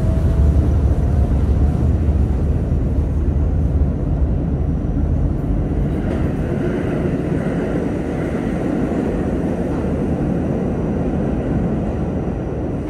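Alstom R160A subway car running on the track, heard from inside the car: a steady low rumble of wheels and running gear that slowly gets quieter.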